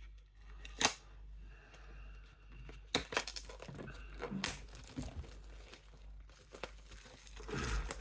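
Paper and plastic packaging rustling and crinkling as items of a boxed set are handled, with scattered sharp clicks and taps, the clearest just under a second in.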